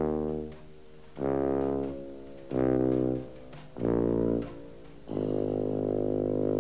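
Closing theme music played on brass: five held notes with short gaps between them, the last held longest.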